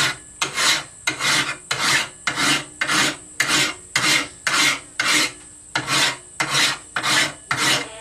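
Hand file rasping along the edge of a steel sword blade in steady, even strokes, about two a second. The file is cutting the edge down because the steel is soft enough to file.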